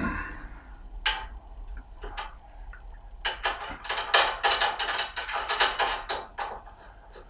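Sharp metal clicks and taps: a few single ones, then a quick run of them for about three seconds, as a compression fitting on a radiator valve is put together and loosely done up by hand.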